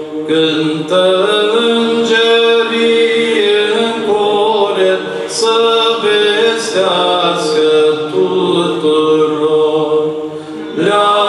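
Male choir of Orthodox priests singing a Romanian Christmas carol (colind) a cappella in several parts over a steadily held note, with a short break between phrases near the end.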